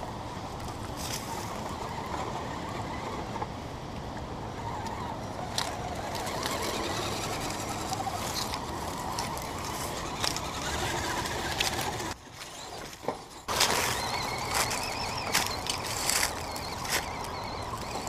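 Axial Deadbolt RC crawler on a trail run: a steady rush of wind and water with rustling, then, after a sudden cut, a faint electric motor whine with scattered sharp clicks and knocks as it crawls.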